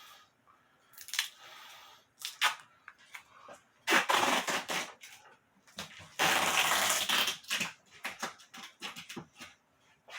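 Reinforced packing tape pulled off its roll in two long rips, about four seconds in and again a little past six seconds, with short scratches and taps around them.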